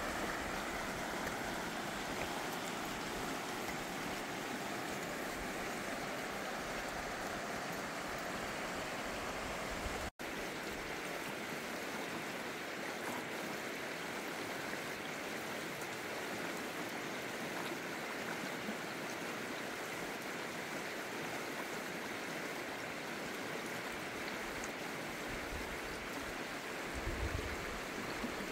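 Shallow mountain creek running over cobbles: a steady rushing of water, with a momentary cut-out about ten seconds in.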